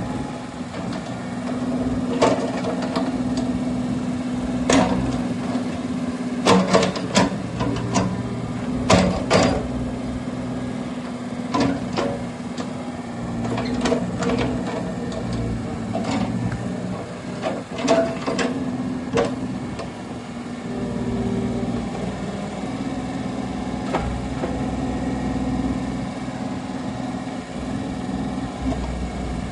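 Bobcat E26 mini excavator's diesel engine running steadily, with repeated sharp knocks and clanks, most of them in the first twenty seconds.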